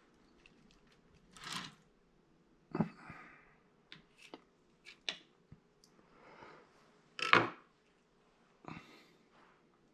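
Metal sculpting tools scraping and clicking against oil-based modelling clay and a wooden work board: irregular short scrapes and taps, with the loudest knock about seven seconds in.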